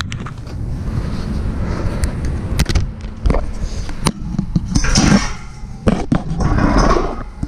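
Handling noise on a handheld action camera: a steady low rumble of wind and handling on the microphone, several sharp knocks, and two louder rustling swells about five and six and a half seconds in as the camera is covered by clothing.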